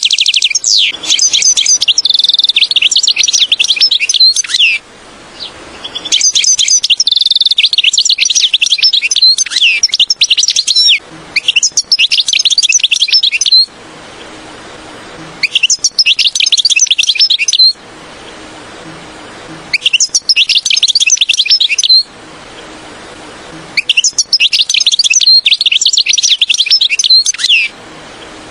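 European goldfinch song: rapid twittering phrases in about six bursts of two to five seconds, with pauses of about two seconds between them.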